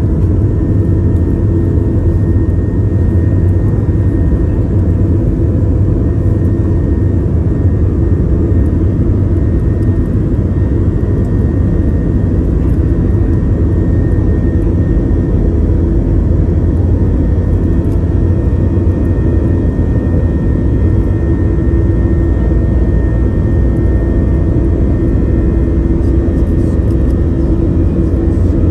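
Steady jet engine and airflow noise heard inside an airliner cabin in flight: a deep, even rumble with faint steady tones above it.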